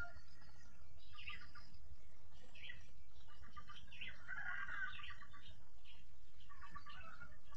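Birds chirping and calling, with short sweeping chirps about every second and busier runs of calls about halfway through and near the end.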